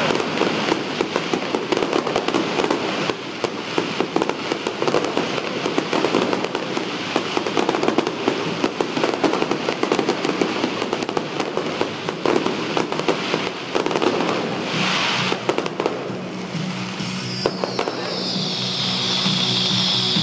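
Aerial fireworks going off in a rapid, continuous string of bangs and crackles. Music comes in near the end.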